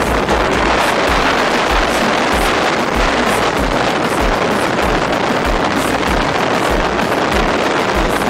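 Wind buffeting a phone's microphone on a boat on open water: a steady loud rush with irregular low thumps.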